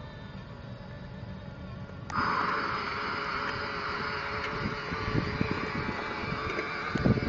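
Children's battery-powered ride-on toy Ferrari driving along a paving-stone path, its electric drive giving a steady whine that comes in suddenly about two seconds in. Wind rumbles on the microphone, growing toward the end.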